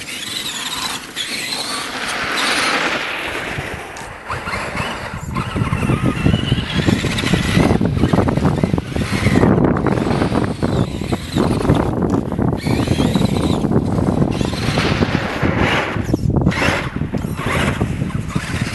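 Traxxas Summit electric RC truck's motor and gearing whining, the pitch rising and falling with the throttle. From about four seconds in a louder rushing noise, strongest in the low range, covers it.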